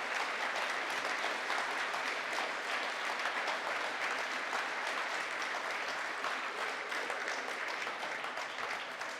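Audience applauding steadily after a keynote speech, the clapping easing slightly near the end.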